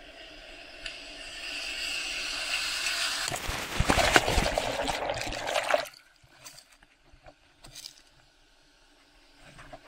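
A breaking ocean wave's whitewater rushing over a camera in a waterproof case: a noisy rush builds for a few seconds, turns loud and crackling as the water churns over the housing, then cuts off suddenly about six seconds in, leaving only faint splashes.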